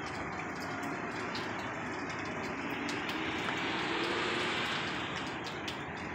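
Unexplained noise in the sky: a steady rushing roar that swells to its loudest about four seconds in and then eases off, which the recorder is sure is not an airplane.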